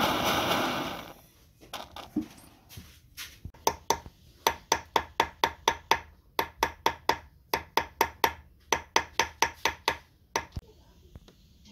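Gas torch hissing, cutting off about a second in. Then a long run of light, sharp hammer taps on a silver ring fitted over a steel mandrel, about two to three a second, stopping near the end.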